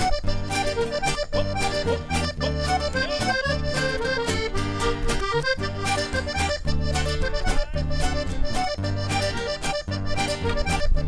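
Accordion instrumental break in a traditional Uruguayan folk song, the melody carried over a steady repeating bass beat.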